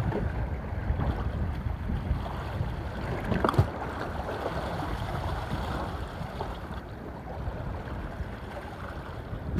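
Wind rumbling on the microphone over choppy river waves lapping and splashing at the shore, with one brief louder slap about three and a half seconds in.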